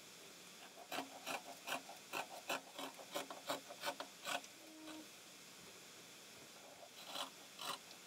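Fabric scissors snipping through sweatpants fabric: a quick run of about a dozen snips, roughly three a second, a pause of about two seconds, then a few more snips near the end.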